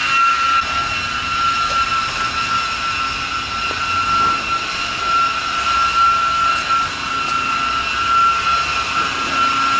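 A car-wash machine's electric motor running with a steady high-pitched whine over an even hiss.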